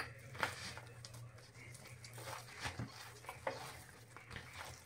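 Hands kneading stiff dough with a little water: soft, irregular squishing and patting, over a faint steady low hum.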